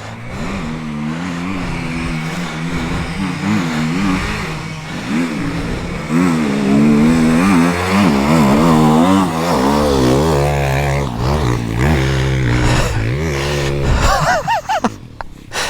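Dirt bike engine revving up and down again and again as it is ridden through deep mud. It is loudest in the middle and drops away near the end.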